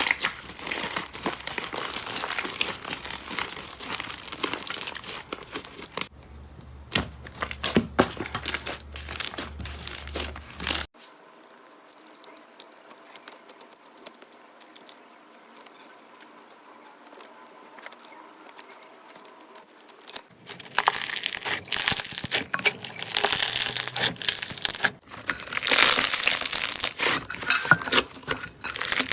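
Slime being squeezed, pressed and pulled by hand, making dense crackling, popping and crinkling, in several short clips. Loud at first, much quieter through the middle, then loud crackling again for the last third.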